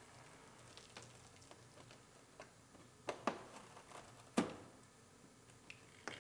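Plastic body side molding being pried off a pickup's body: a few sharp clicks and knocks, with a pair about three seconds in and a louder knock a second later.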